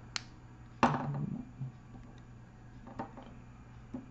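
A few small clicks and knocks of hard 3D-printed PLA doll parts being handled as the doll's head is turned on its neck joint. The loudest knock is about a second in, and fainter clicks come later.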